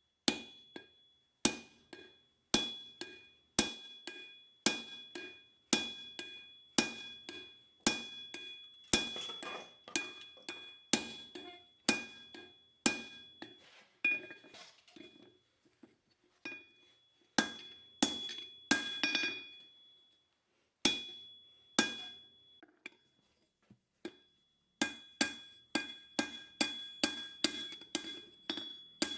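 Hand-hammer blows on steel over an anvil, each strike leaving a short metallic ring. The blows come roughly once a second at first, then in uneven groups with pauses, and quicken to about three a second near the end.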